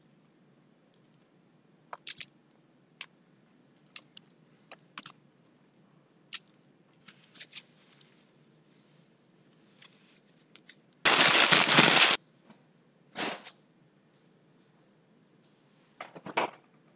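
Paper being handled and crumpled: scattered sharp crinkles and crackles, a loud rush of crumpling noise lasting about a second near the middle, a shorter one soon after and a last cluster of crackles near the end.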